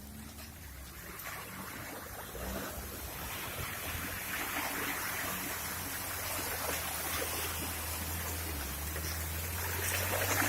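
An offroad vehicle's engine running at low revs under the sound of splashing, rushing water, as the vehicle wades through water. The water noise grows louder from about three seconds in.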